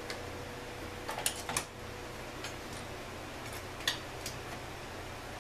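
Small metal parts and hand tools clicking and tapping on a workbench as trimmer pieces are picked up and set down: a few scattered sharp clicks, the loudest near the middle and a little before the end, over a steady background hiss.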